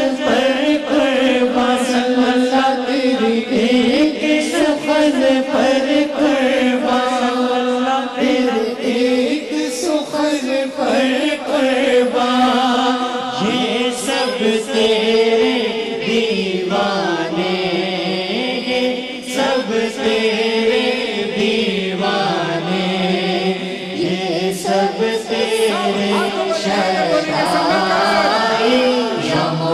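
Voices singing an Urdu naat (devotional song in praise of the Prophet Muhammad) as a drawn-out, unbroken chant, with a group chanting along.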